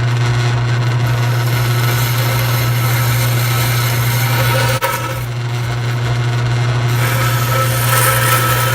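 Electric power tool running steadily as it cuts through sheet metal, with a brief dip about halfway through.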